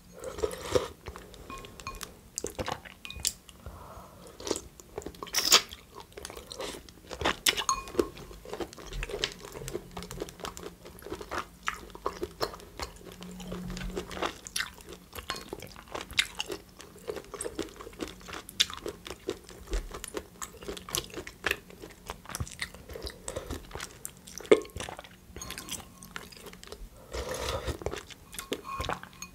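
A person chewing a mouthful of food close to a microphone, with irregular crunching and mouth clicks throughout and a few louder crunches.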